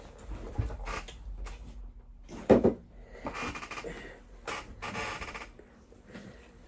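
Handling noise as a Glock 19's slide is set aside and gun parts are moved about on a work surface: a few light knocks, the loudest about two and a half seconds in, with rustling and scraping between them.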